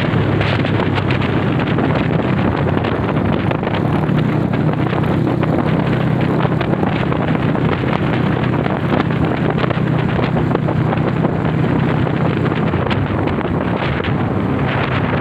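Honda CB motorcycle engine running at a steady cruising pace while riding, with wind buffeting the microphone.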